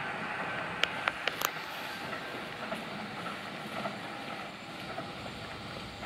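A Sotetsu Main Line electric train pulling away, its running noise fading steadily as it goes. A quick run of four sharp clicks comes about a second in.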